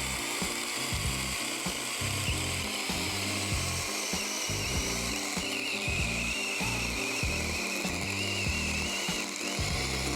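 Seesii 6-inch battery mini chainsaw running and cutting through a small log, a steady electric-motor whine that wavers in pitch as the chain bites. Background music plays underneath.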